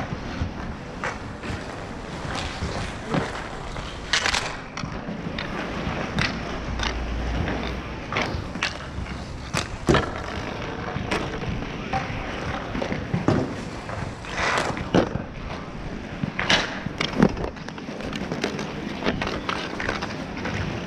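Inline skate wheels rolling and scraping on an asphalt rink, with many sharp clacks of hockey sticks scattered throughout.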